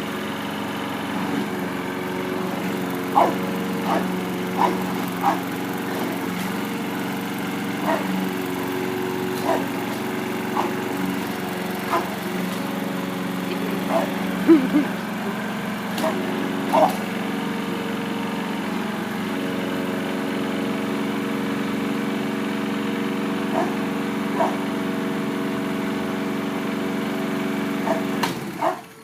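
Petrol lawnmower engine running steadily, with an English bulldog barking at it in short, separate barks about a dozen times. The engine cuts off near the end.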